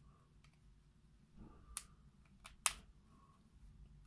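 Faint handling sounds of waxed thread being wrapped by hand around a wooden katana handle, with a few sharp clicks, the two loudest about a second apart in the middle.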